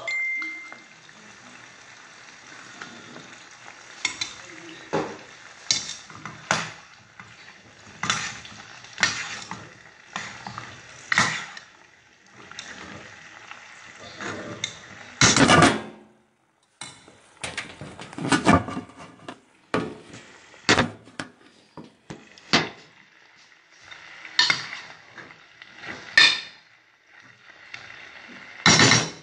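Food sizzling in an enamel pot on a gas stove, with a spoon stirring and repeatedly knocking and clinking against the pot; the loudest knocks come around the middle.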